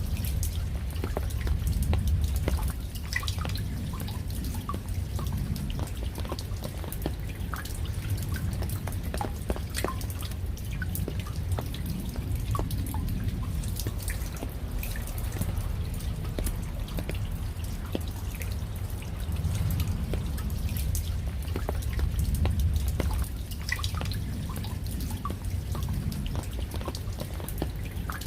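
Raindrops dripping: many irregular single drops ticking and plinking over a steady low rumble that swells and fades a few times.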